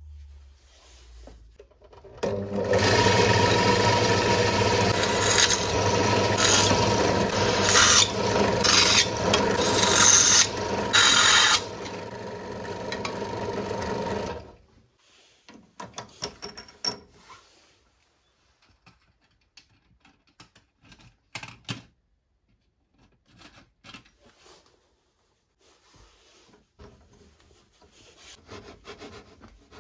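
Benchtop drill press running with its twist bit cutting through hardened saw-blade steel, a steady motor hum under a grinding scrape with sharper bursts as the bit bites. It starts about two seconds in and stops abruptly halfway through. Then come scattered light clicks and knocks from the drill chuck and chuck key as the bit is changed.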